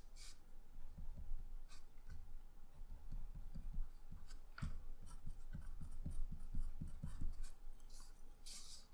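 Faint scratching of a graphite pencil (Staedtler Mars Lumograph) on paper, in runs of short, quick strokes as dashed stitch lines are sketched.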